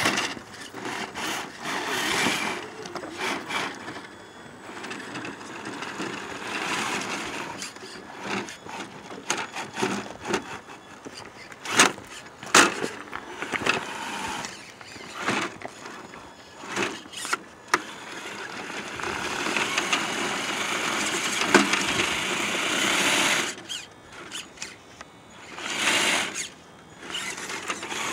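Traxxas TRX-4 RC rock crawler's electric motor and gearbox running in stops and starts as it climbs over rocks, with several sharp clicks and knocks of tyres and chassis on stone about halfway through. The motor runs steadily for a few seconds about two-thirds of the way in.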